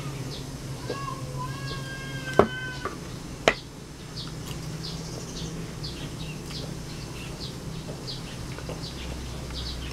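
Birds chirping repeatedly in the background, with a few whistled notes in the first few seconds, over a steady low hum. Two sharp knocks at the table, about two and a half and three and a half seconds in, are the loudest sounds.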